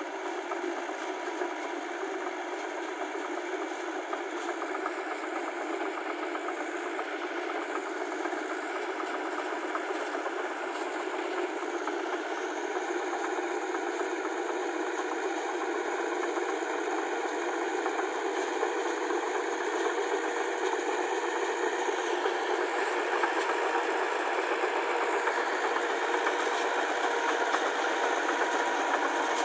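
Massey Ferguson tractor engine running steadily as the tractor works through a flooded field, gradually getting louder.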